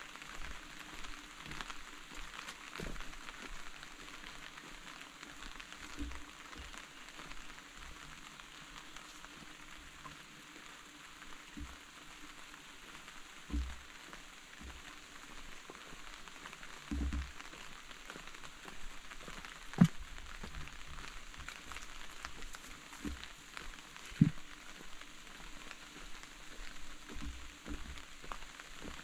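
Rain falling steadily: an even hiss of many small drop patters, with scattered louder drips. A few dull low thumps come around the middle, and two sharp loud knocks stand out in the second half.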